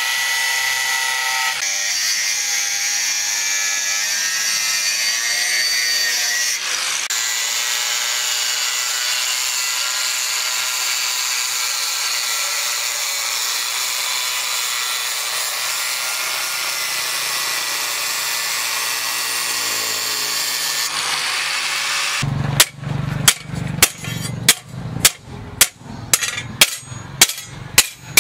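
Angle grinder with a thin cut-off disc cutting through rusty steel plate along a marked knife outline: a steady high whine with a grinding hiss. About 22 seconds in it stops, and a hammer starts striking the partly cut steel plate on a pipe stake, sharp metal blows about two a second.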